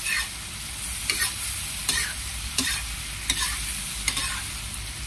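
Stir-frying in a wok: a metal spatula scrapes and knocks against the pan about every three quarters of a second, six strokes, over a steady sizzle of chopped green tomatoes, chillies and dried squid frying in oil.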